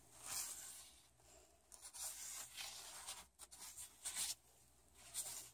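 Paintbrush bristles scratching across paper in a run of short strokes, with pauses between them, as brown paint is dry-brushed on.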